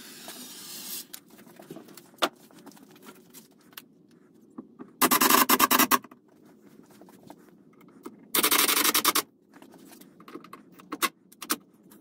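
Cordless power drill driving screws in two short bursts of about a second each, with light handling clicks between them.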